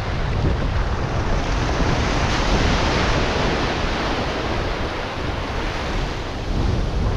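Ocean surf breaking and washing over the sand in the shallows, swelling about three seconds in as a wave rushes in, with wind buffeting the microphone.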